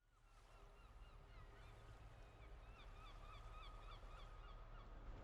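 Faint calling of a flock of birds: many short, repeated calls that bend in pitch and overlap, fading in from silence over a low steady rumble.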